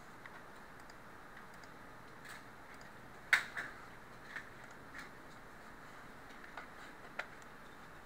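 A few scattered light clicks and taps over a faint steady room hiss. The loudest click comes about a third of the way in with a smaller one just after it, and softer ones are spread through the rest.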